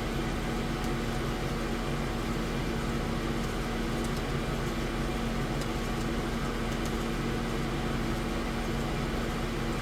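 Steady hum of an AtomStack Hurricane 55-watt CO2 laser engraver running, its fans and air pump droning evenly with a constant low tone.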